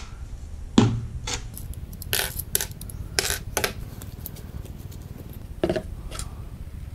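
Scattered clicks and light knocks of a jar of silicone paste being handled on a metal workbench while its screw lid is twisted off, the strongest knock about a second in.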